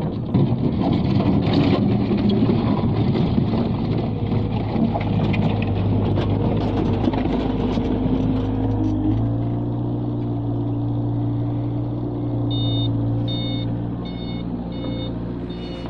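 Bobcat L213 loader's diesel engine working, with rattling and clatter for the first half, then settling to a steady, slightly higher note about nine seconds in. Near the end a reversing alarm starts beeping, about one and a half beeps a second.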